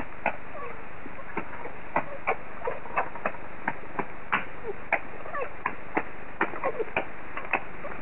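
Steady hiss of heavy rain, broken by irregular sharp ticks and a few short high squeaks and chatters from red foxes at play.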